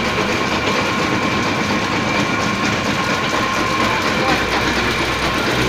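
Tofu ball rolling machine running steadily on its two large electric motors: a constant hum with a high whine over a continuous fast rattle.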